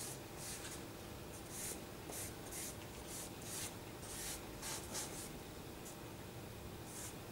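Charcoal stick scratching across drawing paper on an easel: short sketching strokes, a dozen or so, irregularly spaced, with a brief lull about two-thirds of the way through.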